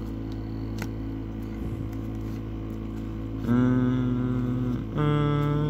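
A steady low hum, then about three and a half seconds in two long held notes, one after the other, each at a steady pitch.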